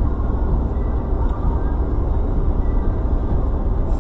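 Steady low driving noise of a moving car: engine and tyre rumble with no distinct events.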